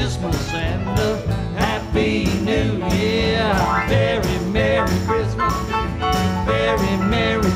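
Live country-style band performing a Christmas song: strummed acoustic guitar and fiddle, with a man singing.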